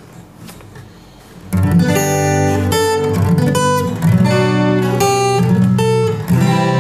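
Acoustic guitar chords, starting about a second and a half in and ringing on with a change of chord about every second: the opening of a song. Heard close up through a clip-on lavalier mic fixed to the guitar's top.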